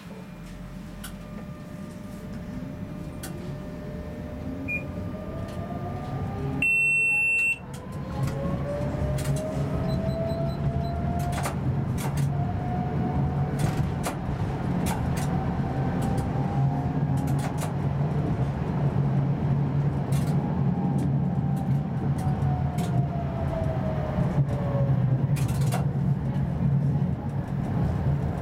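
Electric tram pulling away and accelerating: the traction motor whine rises in pitch and the running hum of wheels on rails grows louder, then the whine slowly falls away as the tram settles at speed. About seven seconds in, a loud electronic beep sounds for just under a second.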